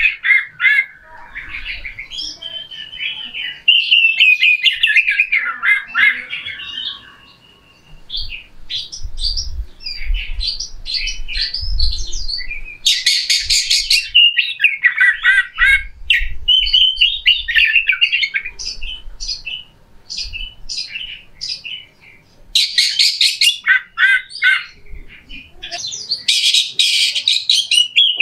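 Oriental magpie-robin singing a loud, varied song of quick whistled and warbled phrases. The song is broken several times by harsh, rasping bursts.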